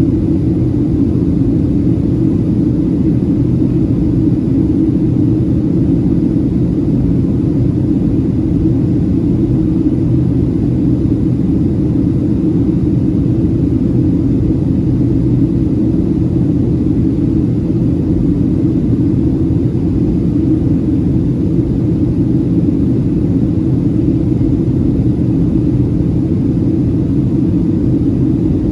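Steady low cabin rumble inside a Boeing 737-700 in flight, from its CFM56-7B turbofan engines and the airflow over the fuselage. It holds even throughout, with a faint steady drone inside the rumble.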